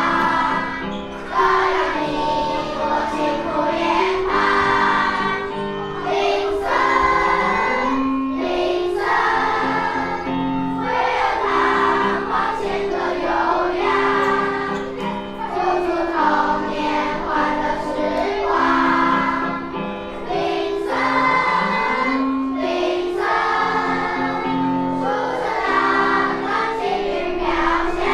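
Elementary school children's choir singing, in phrases of held notes with short breaks between them.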